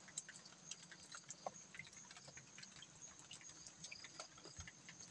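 Near silence: faint scattered small clicks over a faint steady high hiss.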